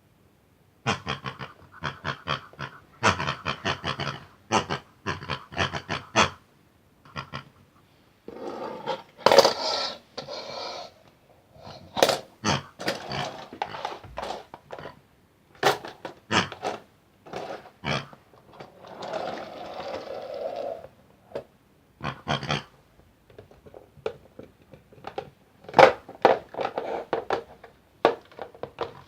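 Grunting, growling pig-like vocal sounds in many quick short bursts, with two longer rasping stretches.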